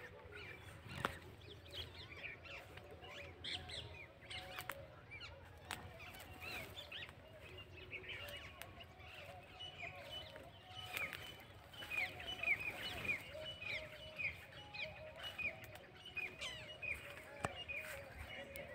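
Birds chirping and calling, with a quick run of short repeated high chirps a little past the middle.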